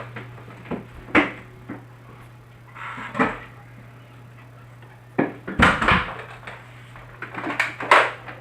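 Scattered knocks and clatters, with a cluster about five to six seconds in and another near the end, over a steady low hum.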